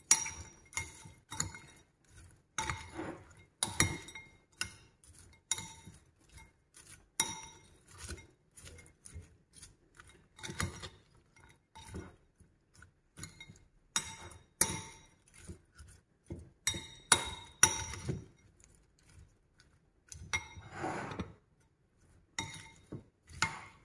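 Metal utensils clinking against a ceramic bowl while tossing a salad: irregular sharp clinks, each with a short ring.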